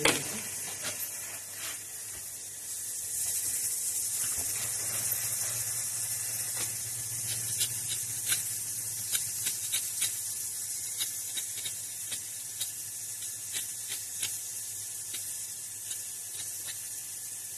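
A knife working vegetables by hand, peeling and cutting: irregular small clicks and scrapes, over a steady high hiss.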